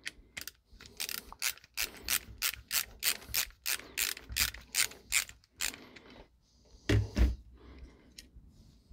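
Ratcheting screwdriver clicking, about three clicks a second, as it drives a brass terminal screw on a light switch tight over a looped wire. About seven seconds in there is a single louder low thump of the switch and metal box being handled.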